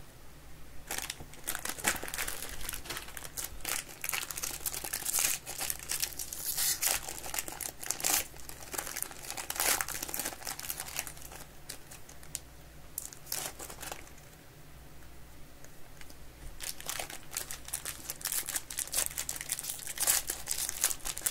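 Trading-card pack wrappers being torn open and crinkled in the hands, in irregular crackling spells with a quieter stretch about two-thirds of the way through.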